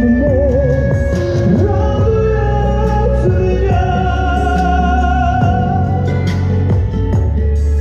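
A man singing a slow melody into a handheld microphone over instrumental backing, with long held notes that waver with vibrato.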